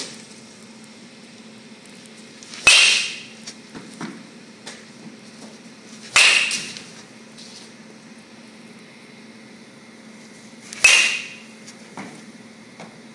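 Baseball bat hitting pitched balls in batting practice: three sharp cracks with a short ringing ping, about four seconds apart, with fainter knocks between them.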